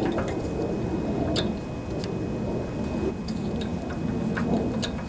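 A steady low rumbling background noise with a few light clicks and taps.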